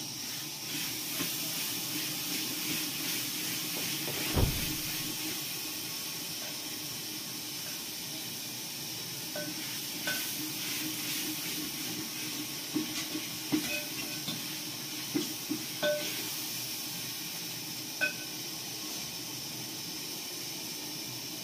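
Large aluminium cooking pot on a gas-cylinder burner: a steady hiss of cooking over the flame, with a dull knock about four seconds in, then a run of short ringing metal clinks as a spoon and the lid strike the pot.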